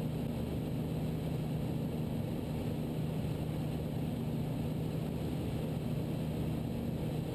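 Steady drone of an Ikarus C42 microlight's engine and propeller in level flight, heard through the pilot's headset feed as an even low hum.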